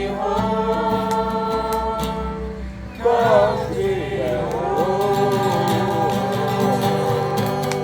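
Several voices singing together over a steady accompaniment, holding long notes. A louder new sung phrase with wavering pitch starts about three seconds in.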